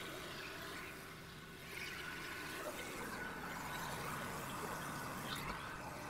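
Faint, steady hiss of a low-pressure soft-wash hose spraying cleaning chemical onto vinyl siding.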